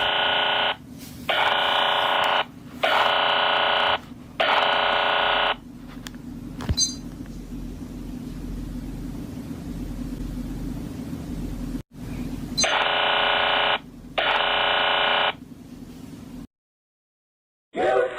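Harsh electronic alert buzzer of a mock emergency alert sounding in bursts of about a second: four in quick succession, then, after a pause filled only by a steady low hum, two more. The hum cuts off near the end.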